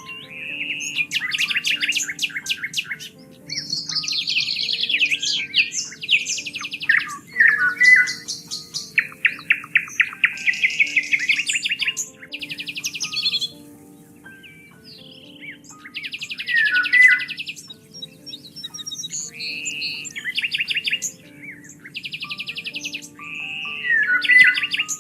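Several songbirds singing and chirping, with fast trills and repeated chirp phrases overlapping throughout. Soft background music of sustained low notes lies beneath.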